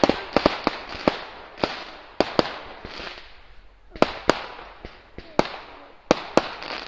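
Fireworks display: about a dozen sharp bangs of exploding shells, some in quick pairs, each fading out over a second or so.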